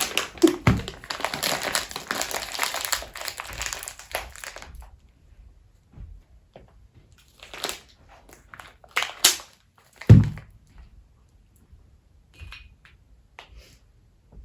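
Plastic wrapping crinkling and rustling for about four seconds, followed by a few separate short knocks and handling sounds.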